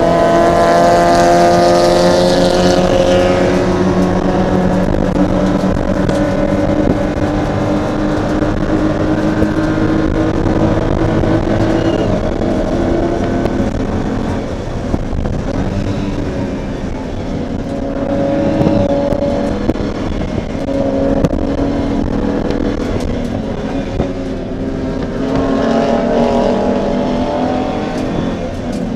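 BMW M235iR race car's turbocharged straight-six heard from inside the cockpit under race load. The revs fall over the first few seconds, then climb and drop again through the gears, over steady road and wind noise.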